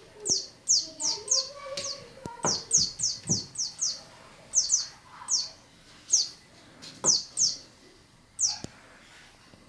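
Squeaking toy mouse giving about twenty short, high squeaks that each fall in pitch, in clusters of two to five, as a cat bites and bats it. A few soft thuds of the cat's paws and body on the wooden floor come between them.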